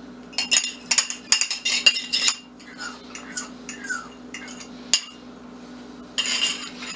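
Metal utensil clinking and scraping against a bowl and pan: a quick run of sharp clinks over the first couple of seconds, then lighter taps and short scrapes, with a brief scraping rustle near the end.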